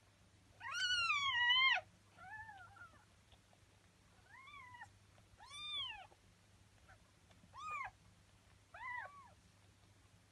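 Newborn kittens mewing: six short, high, arching mews. The first, about half a second in, is the longest and loudest, and the others come every second or two.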